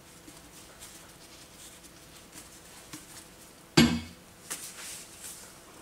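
Faint crackle of a plastic squeeze bottle being handled while epoxy hardener is poured, then a sharp knock about four seconds in as the plastic bottle is set down on a metal stand, followed by a few lighter taps.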